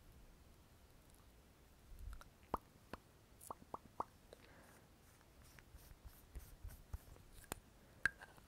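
Faint clicks and taps of small cosmetic items from a makeup pouch being handled. A cluster of sharp clicks comes about two and a half to four seconds in, with a soft rustle just after and two more clicks near the end.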